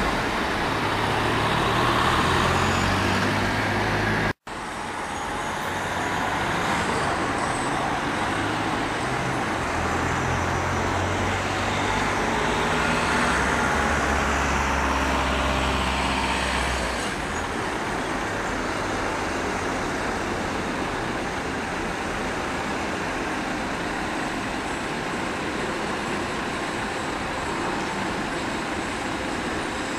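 Road traffic: cars and vans idling and moving past, a steady drone of engines and tyres. The sound drops out for a moment about four seconds in.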